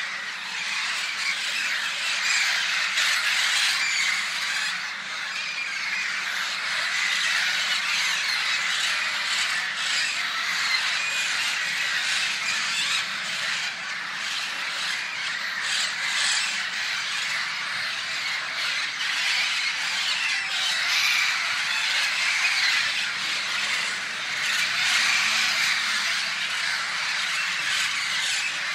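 A large flock of small birds calling all at once, a dense, steady chatter of many overlapping short calls with no break.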